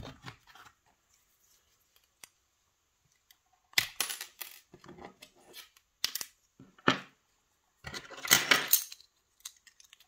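Small metal parts of a pin-tumbler challenge lock clinking and clattering as the cylinder is handled: a few sharp clicks about four, six and seven seconds in and a longer clatter a little after eight seconds.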